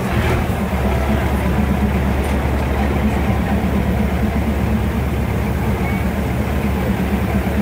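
Diesel railcar engine running with a steady low drone as the train moves slowly along the track.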